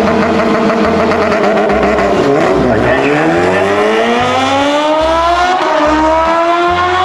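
Sport motorcycle engines at full throttle on a drag-strip run. The pitch sinks over the first few seconds, then climbs steadily with a brief break partway through, as at a gear change.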